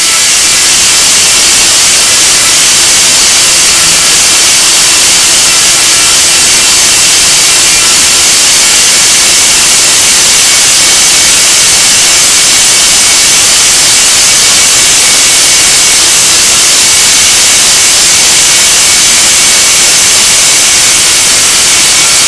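Grinder grinding and polishing the rotor of a 2 hp single-phase motor: a loud, steady hiss of abrasive on metal with a faint steady whine underneath.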